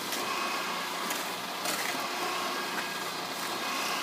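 Homemade bucket mixer running: its motor hums steadily as the bucket turns, with fairly dry mortar mix tumbling inside and a hoe held in the bucket scraping against the mix a couple of times.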